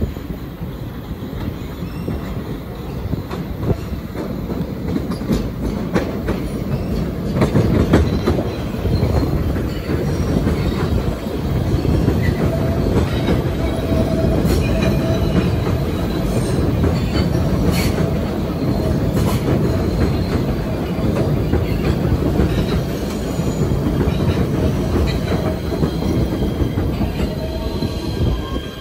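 Kawasaki PA-5 PATH subway train pulling into a station platform: a steady rumble of wheels on rail, loudest as it passes close, with a few sharp clacks over rail joints and a thin, high squeal through the middle as it slows.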